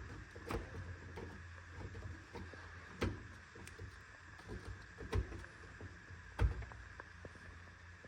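Scattered light clicks and knocks of hands handling the range hood insert's metal and plastic parts around the switch controller, the sharpest knock about six seconds in, over a steady low hum.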